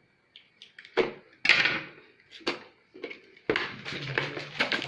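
Earphone retail packaging being handled and opened: a few sharp plastic clicks and crackles, then continuous rustling and crinkling over the last second and a half.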